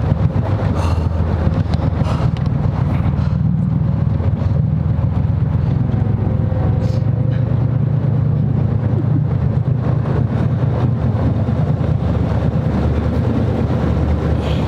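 Boat engine running steadily with an even low hum.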